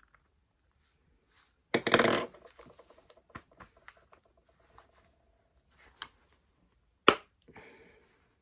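Plastic clamshell housing of a cordless drill being pressed together by hand: a loud snap about two seconds in with a fading ring after it, then scattered small clicks and another sharp click near the end as the halves close fully.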